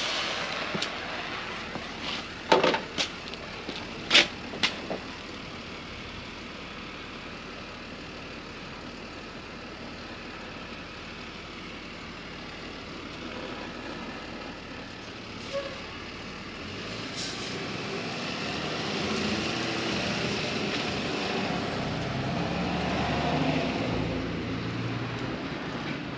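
Propane torch hissing, with a few sharp knocks in the first five seconds. In the second half an engine grows louder, loudest a few seconds before the end.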